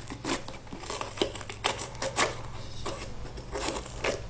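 Small coring knife cutting around the stem of a yellow bell pepper: a quick, irregular run of crackling clicks as the blade works through the pepper's flesh.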